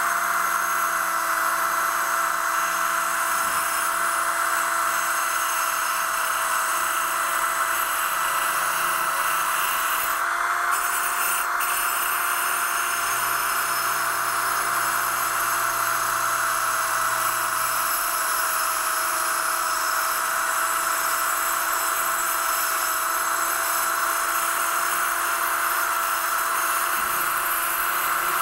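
Electric drill running at a steady, even speed, spinning a Flex-Hone abrasive against the face of a motorcycle brake rotor to scrub crud off it; a constant motor tone with a rasping hiss of abrasion.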